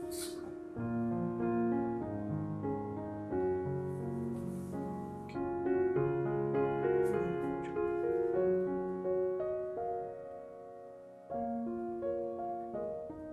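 Background piano music: a gentle keyboard melody over soft chords.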